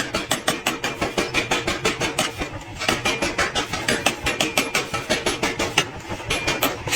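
Mechanical power hammer pounding hot iron in a fast, even rhythm of about six blows a second, the metal ringing with each blow. The blows ease off briefly about two and a half seconds in.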